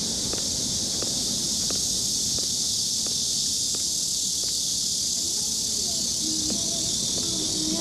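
Steady hiss of rain with the runner's footfalls on wet pavement, regular, about three every two seconds. Faint tones come in near the end.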